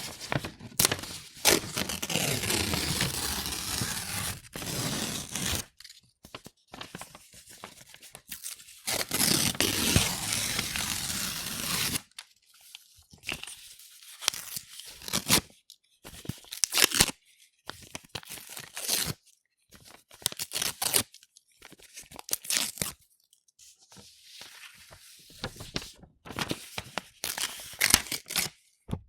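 A4 sheets of paper being torn by hand, close up: several long tears in the first twelve seconds or so, then a series of shorter rips with short pauses between them.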